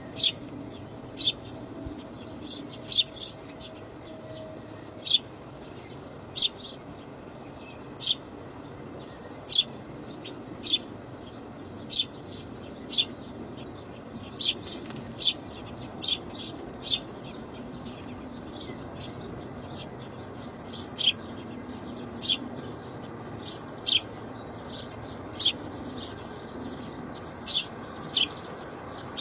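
A bird giving short, sharp, high-pitched chirps, one roughly every second, over a steady low background hum.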